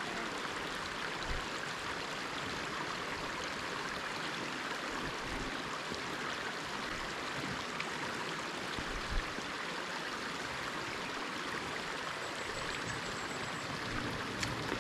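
Forest river water rushing steadily, an even unbroken noise, with one brief knock about nine seconds in.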